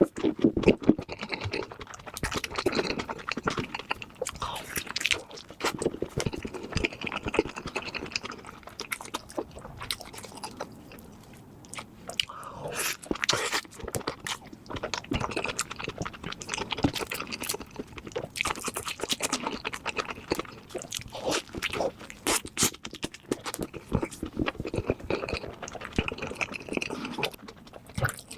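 A person chewing crunchy food close to the microphone: dense, irregular crunching, with a short lull about eleven seconds in.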